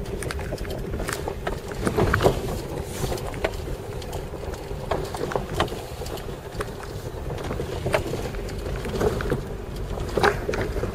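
Vehicle engine running as it drives slowly over a rough, rocky dirt track, heard from inside the cab. There is a steady low rumble and frequent irregular knocks and rattles as the wheels go over bumps.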